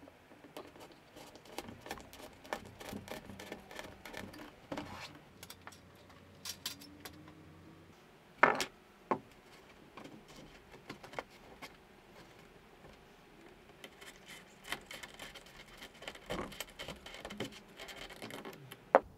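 Bamboo skewers being pushed and twisted through a rigid foam roof panel into the sidewall, making a run of small scratching, crackling clicks. A sharp knock about eight and a half seconds in, with a smaller one just after, is the loudest sound.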